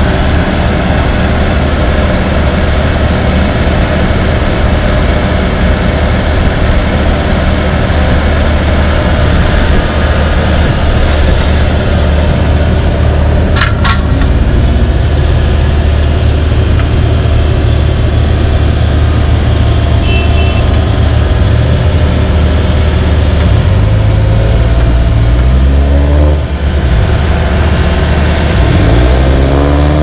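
LeeBoy 8515B asphalt paver's diesel engine running steadily at close range, a strong low drone. A single sharp knock comes about halfway through, and near the end engine pitch rises several times as engines rev up.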